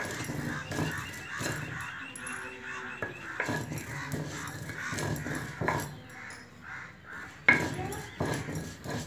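Stone roller grinding dry-roasted panch phoron seeds on a flat stone slab (sil-batta), scraping back and forth in repeated rasping strokes, with one sharp knock of stone on stone near the end. The spices are being ground while still hot for mango pickle masala. Harsh bird calls sound in the background.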